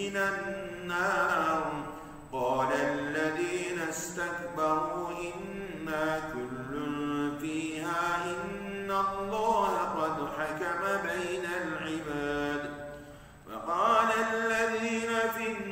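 A solo male voice chanting the Quran in Arabic, a melodic tajwid recitation with long, gliding held notes. It breaks briefly for breath about two seconds in, and again near the end before the next verse begins.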